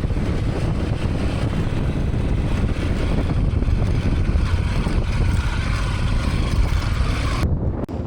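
AKT TT DS 200 motorcycle riding along, its engine rumble mixed with heavy wind buffeting on the microphone. The wind noise cuts off sharply near the end.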